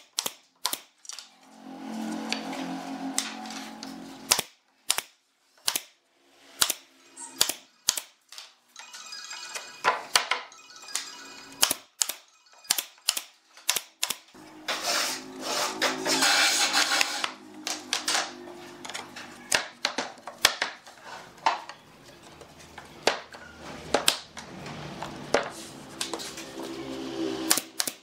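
Pneumatic brad nailer firing nails into pine boards: a long irregular series of sharp shots, sometimes several in quick succession. In between come three stretches of a steadier, denser noise with a low hum.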